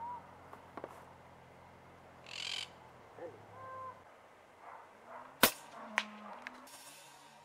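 A monk parakeet's squawk about two seconds in, then the single sharp crack of a PCP air rifle shot, the loudest sound, about five and a half seconds in, with a fainter click half a second later.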